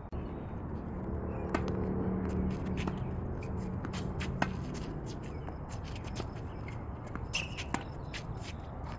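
Tennis rally on a hard court: sharp pops of the ball coming off the rackets and bouncing on the court, the loudest about a second and a half in and just after four seconds, with quicker scuffs and steps of tennis shoes between them. A steady low rumble runs underneath, and a low hum sounds through the first half.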